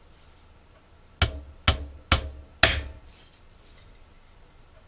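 Four sharp hammer blows about half a second apart, each with a short ring.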